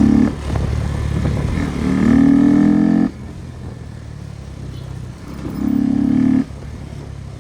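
A cow mooing three times, a short low call and then two longer ones, over the steady low running of a motorcycle engine.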